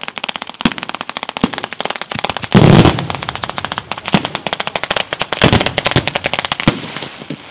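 A ground-level firecracker barrage at a fireworks display: a fast, unbroken run of sharp cracks, many per second, with heavier bangs mixed in. The loudest comes about two and a half seconds in, and the run thins out just before the end.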